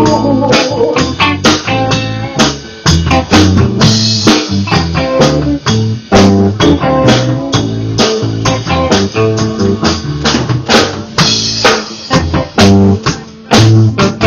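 Live rock band playing: drum kit with regular hits, electric bass and electric guitar.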